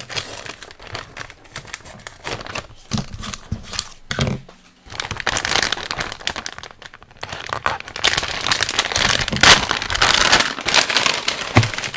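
A plastic kit parts bag being handled and torn open, crinkling irregularly with sharp crackles, loudest in the last few seconds.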